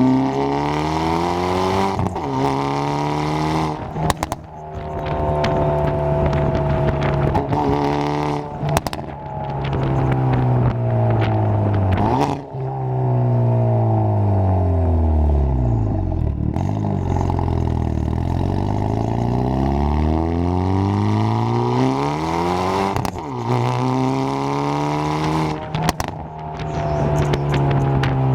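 Hyundai Veloster N's turbocharged 2.0-litre four-cylinder, running with a catless downpipe in N mode, pulling through the gears: the engine note climbs and drops back at each shift, then falls away about halfway through as the car slows and builds again afterwards.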